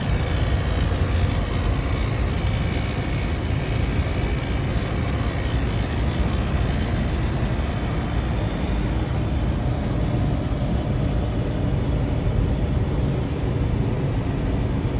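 Steady drone of running HVAC machinery, heaviest in the low end, with faint steady tones over an even rush of air.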